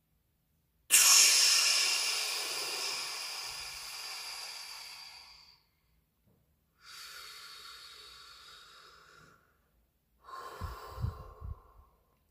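A person releasing a held breath: a sudden loud exhale about a second in that fades away over several seconds, then two more deep, quieter breaths, the last shorter with a few low thumps. These are the recovery breaths after a Wim Hof-style breath hold with a push.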